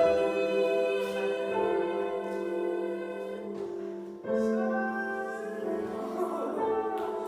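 Music of long held notes sounding together as a chord, with a new chord coming in about four seconds in.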